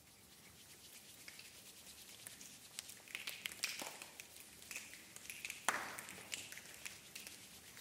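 A choir making a scattered patter of soft clicks and taps, many small sounds overlapping irregularly, with two louder knocks about four and six seconds in.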